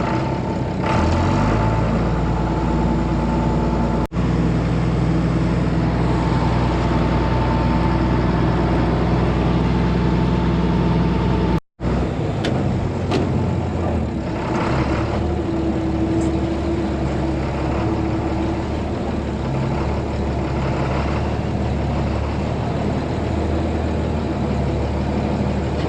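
Heavy farm machinery engine running steadily, with a deep, even hum. It breaks off abruptly twice, about 4 and 12 seconds in, and comes straight back at a slightly different pitch.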